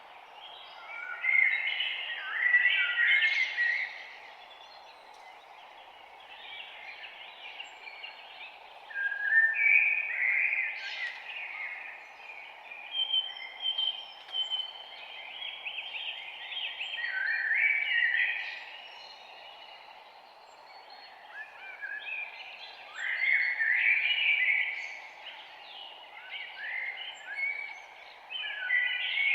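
Songbirds singing in the woods, with bursts of quick chirps and trills that come and go every few seconds, some phrases overlapping. A steady hiss of background noise runs underneath.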